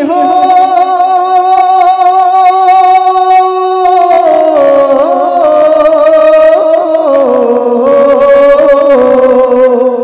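Man singing a naat into a microphone, drawing out long held notes with a wavering vibrato. He holds one high note for about four seconds, then the melody steps down lower a couple of times.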